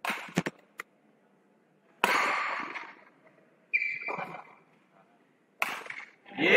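Badminton rally: sharp racket strikes on the shuttlecock, each ringing briefly in the hall, and a short high squeak about four seconds in, typical of a shoe on the court mat, with silent gaps between.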